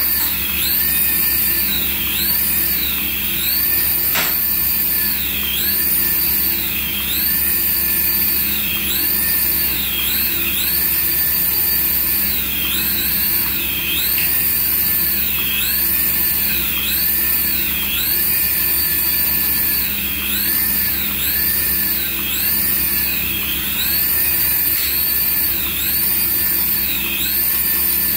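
Toy RC helicopter's small electric rotor motors whining at high pitch. The pitch rises and falls in a steady cycle a little more than once a second as the throttle pulses, with one sharp knock about four seconds in.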